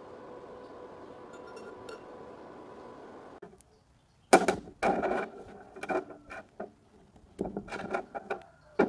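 Faint steady electrical hum, then, about four seconds in, a run of sharp metallic clinks and clatters as small steel pins, bolts and a rod are picked up and set down on a steel plate.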